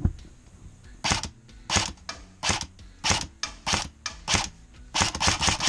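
M4-style airsoft rifle firing single shots, about one every two-thirds of a second, then a quick string of about five shots near the end.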